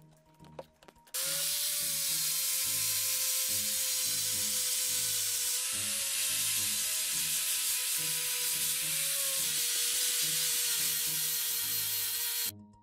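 Angle grinder with a sanding disc, switched on about a second in and running steadily with a high whine while it sands the steel sword blade, then switched off near the end.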